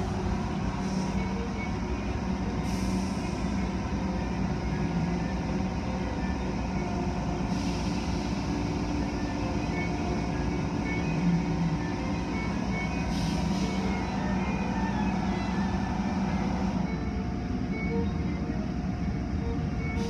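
Automatic car wash tunnel equipment running steadily, with motors, pumps and water spray, heard through the glass of the viewing window. A few short air-like hisses come through, about four times.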